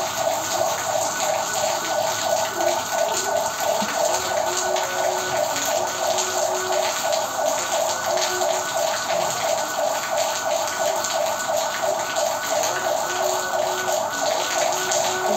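Heavy rain pouring down and splashing on a flooded paved courtyard, a steady hiss of falling water. Through it runs a rapid, even pulsing tone, several beats a second.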